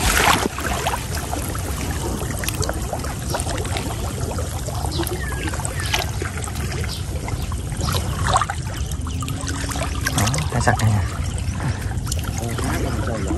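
Water sloshing, splashing and trickling as a person wades through deep water, with scattered small splashes over a steady low rumble.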